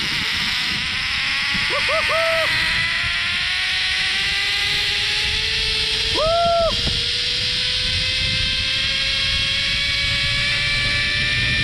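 Zipline trolley pulleys running along the steel cable, a whine that climbs slowly in pitch as the rider picks up speed, over rushing wind noise. Short high whoops cut in about two seconds in, and again about six seconds in.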